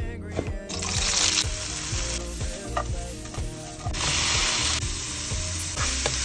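Minced meat sizzling as it is fried and stirred in an oiled wok, heard in several short edited cuts where the hiss changes in strength.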